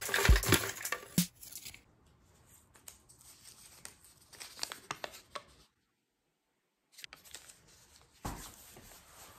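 Slips of paper rustling and crinkling, loudest in the first second or so as a hand rummages through a bowl of them, then a small folded slip being handled and unfolded. A second of dead silence breaks it midway.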